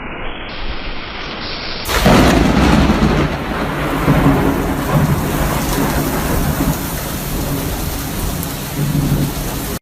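Heavy rain with thunder: a steady rushing noise, then a loud rumble that starts suddenly about two seconds in and keeps going.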